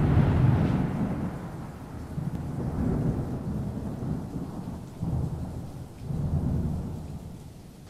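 Rolling thunder rumbling in several swells over a light hiss of rain. It is loudest at the start and fades away near the end.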